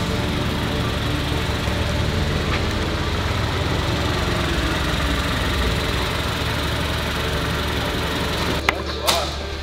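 A 2017 Jeep Renegade's engine running steadily at low revs, with two sharp clicks close together near the end.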